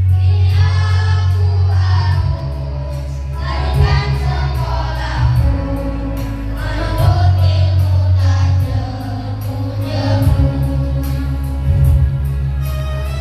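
Children singing a song together into handheld microphones over a recorded backing track with a steady bass line, amplified through a sound system.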